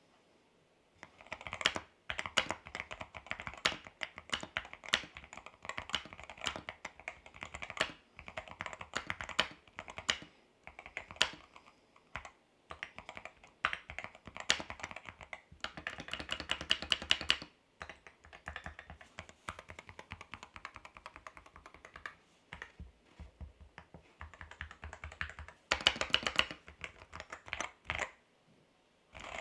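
Typing on a modded Keychron Q1 HE Hall-effect mechanical keyboard: fast runs of key clacks in bursts of a few seconds, with short pauses between them.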